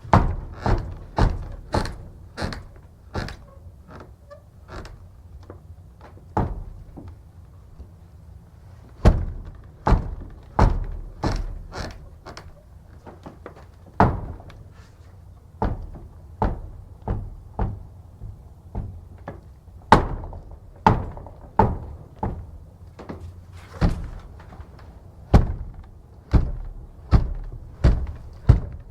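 Heavy wooden church door banging and knocking again and again, a sharp thud about every second or less, each with a short ringing tail.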